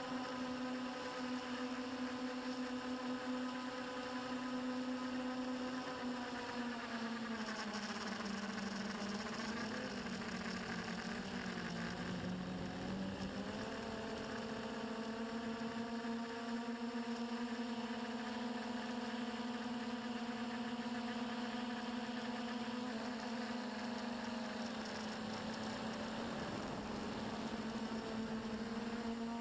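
Electric motors and propellers of a small remote-controlled aircraft, heard from its own onboard camera, buzzing steadily. The pitch dips and wavers for several seconds as the throttle eases during a descent, then settles back to a steady hum as it holds low over the ground.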